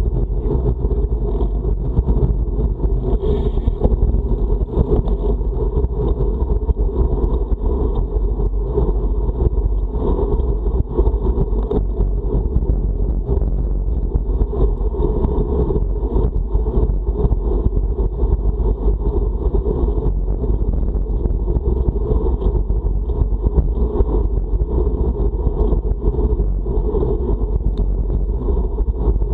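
Wind buffeting the microphone of a camera on a moving road bike: a steady, loud rumble heaviest in the lows.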